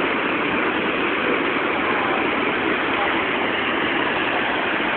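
Steady rushing of a waterfall pouring over rocks.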